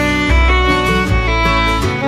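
Instrumental background music: a melody over bass notes that change about twice a second.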